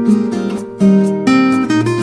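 Background music of strummed acoustic guitar chords.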